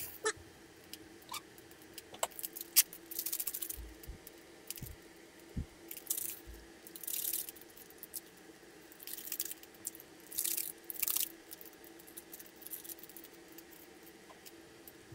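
A few light clicks and knocks as the wooden spatula stirs the cabbage in the pan, then several bursts of crisp rustling as consommé granules are shaken out of their packet into the pan. A faint steady hum runs underneath.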